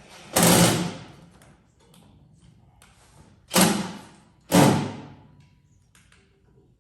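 Three heavy thumps on the smoker's metal parts as they are forced together, each dying away quickly: the first about half a second in, then two close together about a second apart near the middle.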